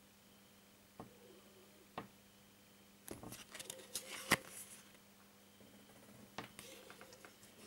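A thin printed trading card handled between fingers: a few faint light clicks, then a stretch of crackling and rubbing as the card is bent and turned over, with one sharp click about four seconds in.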